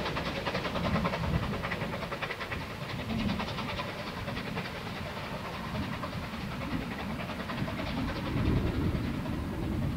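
Steam locomotive working a train out of sight, its rapid exhaust beats heard at a distance and fading over the first few seconds, over a low rumble.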